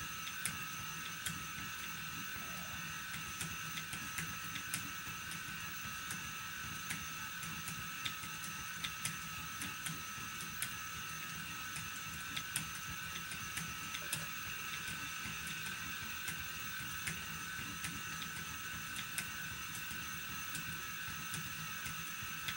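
Phoenix electric motor spinner running steadily, its motor and spinning flyer giving a steady high hum, with irregular faint ticks.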